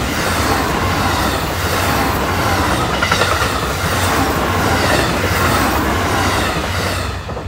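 Electric train passing close by, its wheels clacking in a steady rhythm over the rail joints, the noise swelling at the start and falling away near the end as the train clears.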